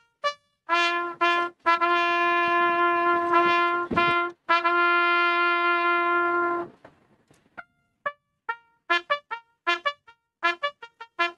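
Solo trumpet playing a slow melody: a few short notes, then two long held notes, and after a short pause a run of quick short notes.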